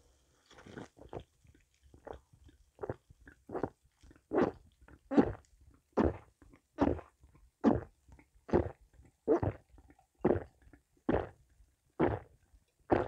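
A person gulping carbonated clear soda in one long drink, with a steady series of swallows a bit more than one per second. The swallows are soft at first and louder from about four seconds in.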